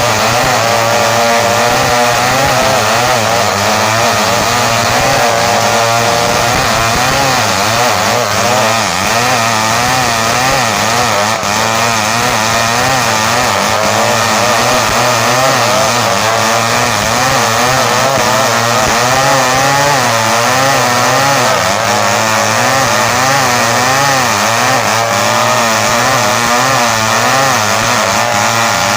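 Home-built chainsaw running under load as it cuts through kapur hardwood, its engine pitch wavering up and down continuously as the chain bites and eases.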